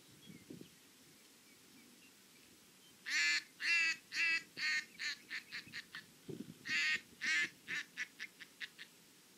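Duck call blown in two descending series of quacks, each opening with a few long, loud quacks and speeding up into shorter, softer ones. This is the call used at a retriever training station to draw the dogs' attention before a mark is thrown.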